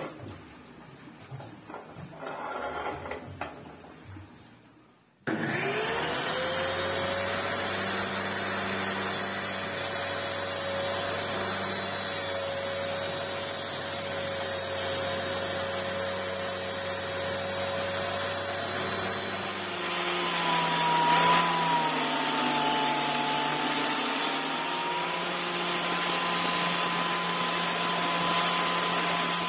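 A few light knocks as an aluminium angle fence is set on the saw table. About five seconds in a table saw switches on, spins up quickly and runs with a steady whine. About twenty seconds in it gets louder and its pitch wavers and dips as a sheet of HPL laminate is fed through the blade and cut.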